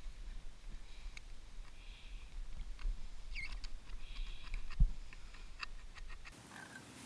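Small hand-held can opener working its way around the rim of a tin can, making a run of sharp metal clicks and short squeaks. There is a single dull knock a little before five seconds in.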